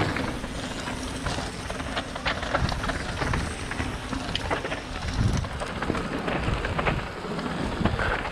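Wind buffeting the microphone in an uneven low rumble, with scattered short clicks and crunches.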